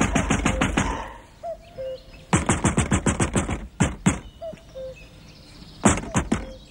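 Rapid, hard knocking on a wooden front door: a fast burst of raps, a second longer burst about two seconds in, two single knocks, then a few more raps near the end.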